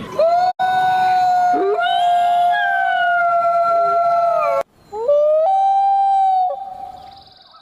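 A dog or wolf howling: one long, steady-pitched howl of about four and a half seconds, then after a short break a second shorter howl that fades away.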